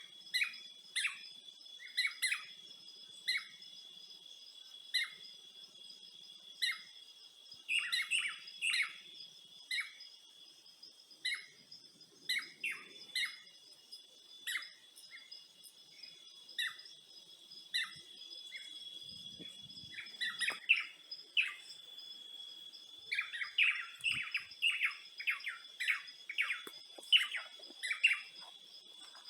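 Birds chirping in short, repeated calls about once a second, breaking into quicker runs of chirps near the end, over a steady high-pitched drone of insects.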